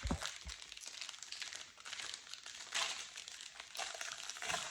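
Plastic foil wrapper of a Topps baseball card pack crinkling and crackling as it is torn open and handled, with a couple of low thumps at the start.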